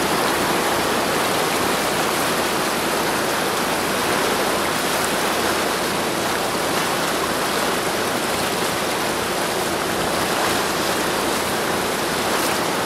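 Water rushing along the hull of a Sea Ray 330 Sundancer cruiser under way, a steady, even rush, with a faint low engine drone underneath.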